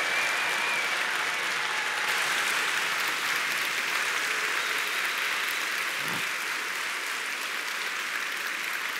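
Audience applauding steadily, gradually getting quieter.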